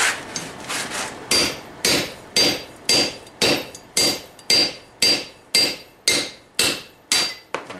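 Hammer blows on steel, a few lighter knocks and then a steady run of about a dozen hard strikes, about two a second, each with a short metallic ring: a steel shank being driven tight through a hole in a plate.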